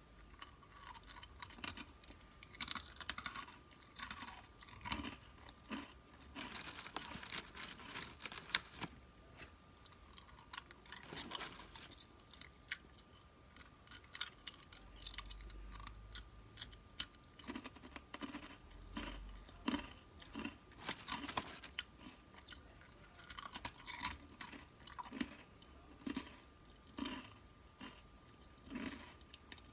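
Close-miked chewing and crunching of snacks: irregular crisp crunches and bites, in clusters of crackling with short gaps between.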